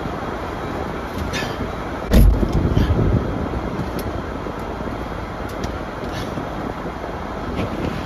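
Steady low rush of noise inside a running car in a snow storm, with a heavy low thump a little over two seconds in and a few faint clicks.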